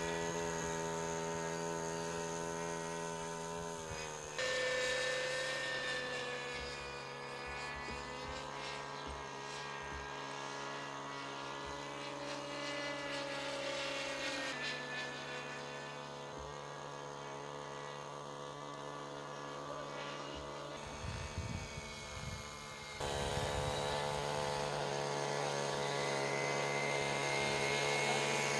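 Radio-controlled model helicopter with a small fuel engine running in flight: a steady engine and rotor whine whose pitch drifts up and down with the throttle. Its pitch and loudness jump abruptly about 4, 14 and 23 seconds in, and it is loudest near the end as the helicopter hovers low.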